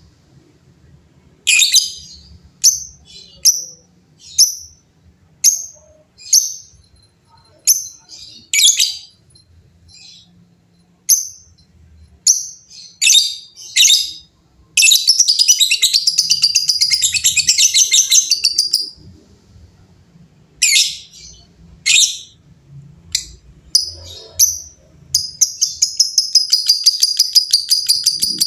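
Lovebirds calling: sharp, high single chirps about a second apart, broken by a long rapid chattering trill of about four seconds in the middle, with another starting a few seconds before the end. The long chatter is the lovebird's 'ngekek panjang' song prized by keepers.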